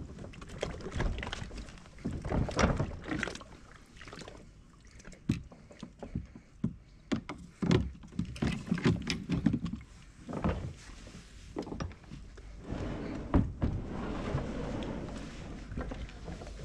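Irregular knocks, clunks and rattles of fishing rods and gear being handled on a plastic fishing kayak tied up at a floating plastic dock. A steadier rushing noise rises in the last few seconds.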